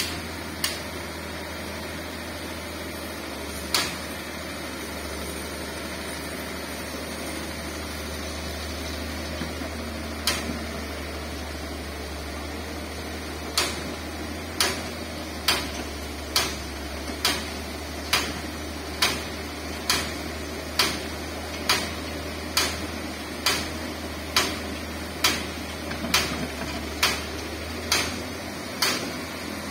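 Large Komatsu hydraulic excavator running with a steady low diesel drone while it loads sand. Sharp clicks are heard over it, a few scattered at first and then regularly about once a second from about halfway.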